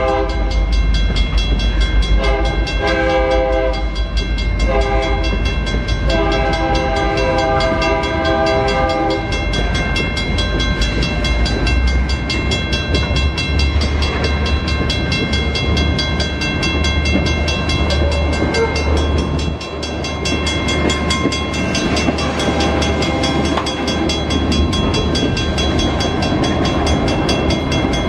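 Freight train locomotive air horn sounding in blasts: the end of one, then a long, a short and a long blast held for several seconds, the grade-crossing signal. After that the train rolls by, a steady low diesel rumble under the wheel noise of passing tank cars.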